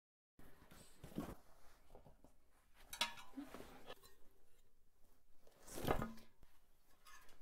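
Handling noises from a motorcycle tyre, inner tube and spoked wheel rim being worked apart by hand: rubbing and scuffing with a few sharper knocks, the loudest about six seconds in as the rim comes free of the tyre.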